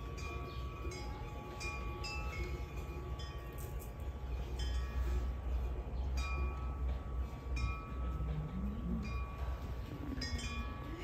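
Persian setar played slowly, single plucked metal-string notes ringing out about once a second over a steady low rumble. A low wavering sliding tone joins in from about eight seconds in.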